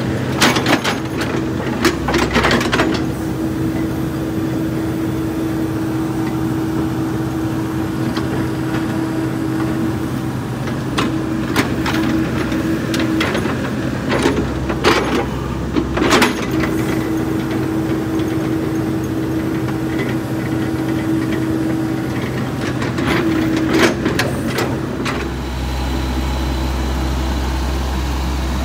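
Komatsu PC78US mini excavator's diesel engine running steadily, with a higher tone that comes and goes as the arm and bucket move. Several scraping knocks come from the steel bucket working the dirt.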